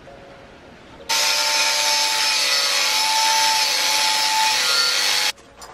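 Angle grinder cutting through a bent steel pipe: a loud, steady grinding hiss with a high whine. It starts about a second in and stops abruptly shortly before the end.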